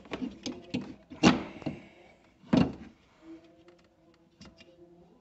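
Clicks and knocks of hard parts and tools being handled inside a scooter's front panel, with two louder thunks about a second in and about two and a half seconds in, then a faint steady hum.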